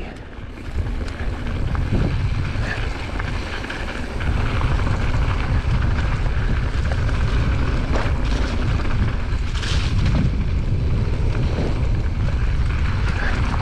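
Wind buffeting a handlebar-mounted action camera's microphone as a mountain bike rolls down a dirt trail, with tyre noise and small knocks and rattles from the bike over stones. It grows louder about four seconds in as the bike picks up speed.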